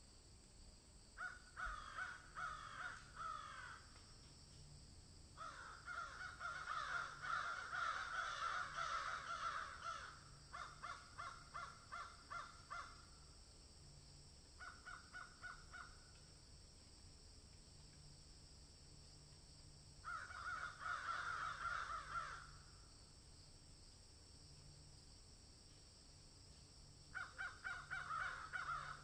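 Crows cawing in bouts of rapid, repeated harsh calls, with quiet gaps between bouts; the longest and loudest bout comes a few seconds in.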